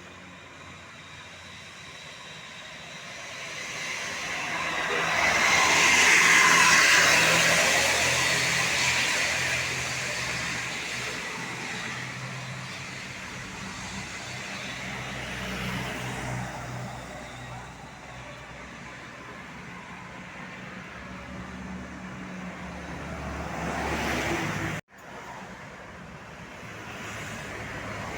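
Road traffic passing close by, with steady engine sound. One vehicle passes loudly, swelling and fading about six seconds in, and a second one builds near the end before the sound cuts off abruptly.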